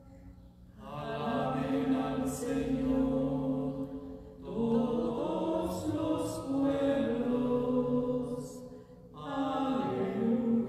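Sung responsorial psalm at Mass, in three long phrases of held, sustained notes with brief breaths between them.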